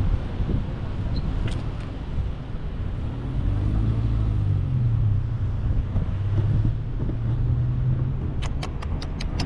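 Low rumble of a vehicle engine running, with a steady low hum through the middle, and a quick run of sharp ticks near the end.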